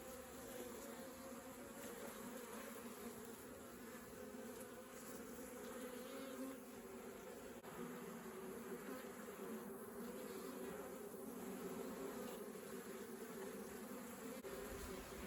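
Honeybees buzzing steadily around an open hive, a faint hum of many wings.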